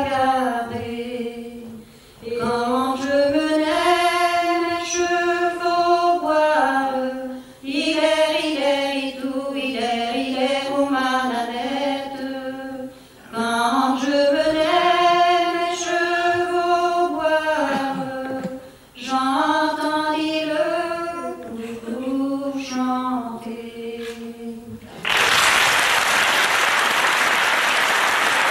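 Unaccompanied singing of a traditional song: one melodic line sung in phrases of about five seconds with short breaks between them. The song ends and the audience breaks into applause about 25 seconds in.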